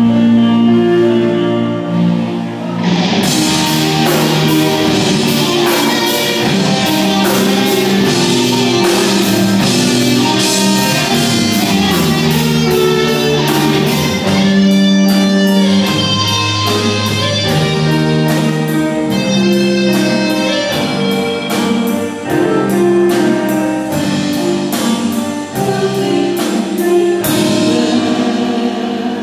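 Live rock band playing with electric guitar, bass, keyboard and drum kit. The drums come in about three seconds in with a steady cymbal beat and drop out near the end.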